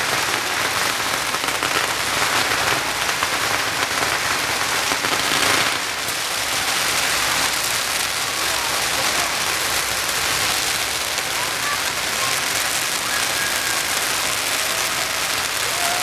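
A long string of firecrackers going off in a dense, continuous crackle, a little louder for the first six seconds.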